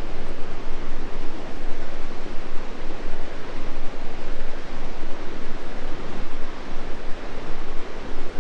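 Rushing river water in a gorge: a loud, steady rush with no let-up.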